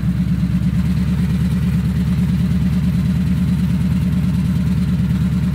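Ford Crown Victoria's 4.6-litre two-valve V8 idling through long-tube headers with the electric exhaust cutout open, a steady, evenly pulsing low exhaust rumble with no revving.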